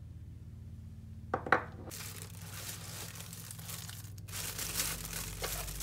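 A couple of sharp clicks about a second and a half in, then crinkling and rustling of a clear plastic bag wrapped around a kids' microscope as it is handled, with a brief pause about four seconds in.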